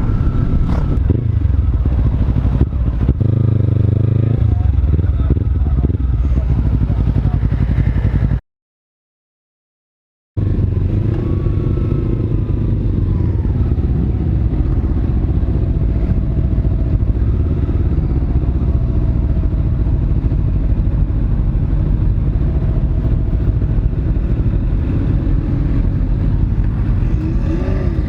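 Kawasaki Z300 parallel-twin motorcycle engine running under way, with riding noise, heard from a helmet camera. The engine pitch rises and falls in the middle. The sound drops out to dead silence for about two seconds around eight seconds in.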